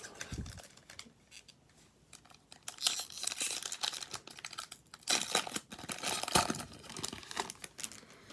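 Plastic wrapper of a hockey card pack crinkling and tearing open, in two scratchy bursts about three and five seconds in, with light handling of cards between.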